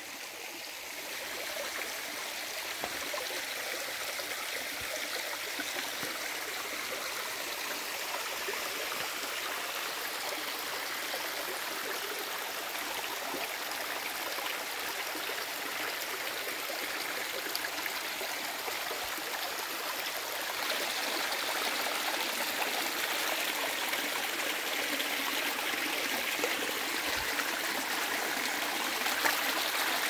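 Shallow rocky stream flowing and trickling over stones, a steady rush of water that grows louder about twenty seconds in.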